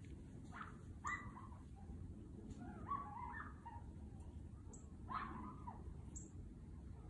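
Miniature dachshunds giving short yips and barks, a few single ones and a quick cluster in the middle, while they work a brush pile for game.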